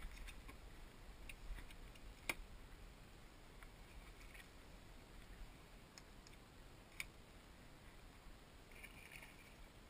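Near silence, broken by a few faint, sharp clicks, the clearest about two seconds in and about seven seconds in.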